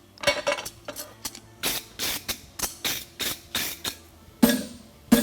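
Forging hammer striking a steel horseshoe bar on the anvil while shaping the shoe: a quick run of blows at about three a second, then two heavier, ringing blows near the end.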